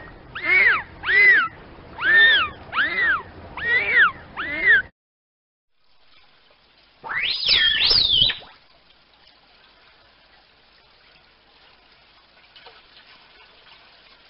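Dolphin whistles: about six short arched whistles in quick succession, each rising and then falling in pitch, stopping about five seconds in. After a brief gap comes one louder, higher whistle that wavers up and down, followed by faint water noise.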